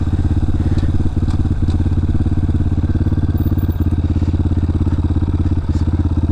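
Honda CRF230F single-cylinder four-stroke dirt bike engine running at low, steady revs with an even pulse.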